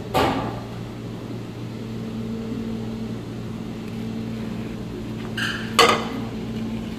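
Steady mechanical hum in a kitchen. A clatter of the pan and chopsticks right at the start and a pair of clinks about six seconds in, chopsticks setting the fried tuile down on a ceramic plate.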